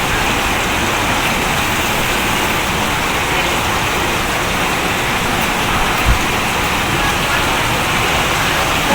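A steady, even hiss of noise, rain-like, with one brief low thump about six seconds in.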